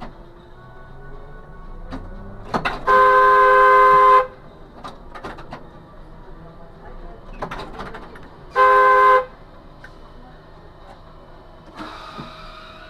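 Car horn honked twice: a long blast of over a second, then a short one about five seconds later.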